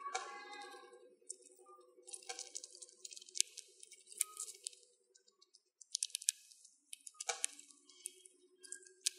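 Dwarf hamster husking sunflower seeds with its teeth: quick, crisp cracking and crunching clicks in bursts, with a short pause about five seconds in.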